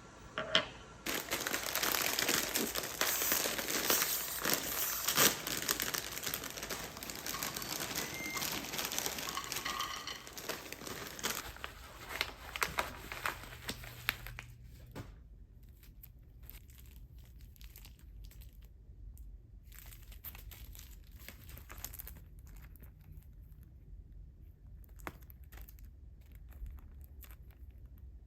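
Packaging being unwrapped by hand: dense crinkling and tearing for about the first half, then quieter scattered rustles and clicks.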